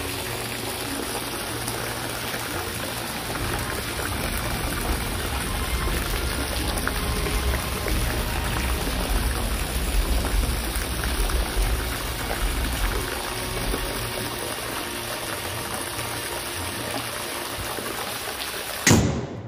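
Steady rushing water and rain noise, described as loud, with a sharp click near the end just before it cuts off.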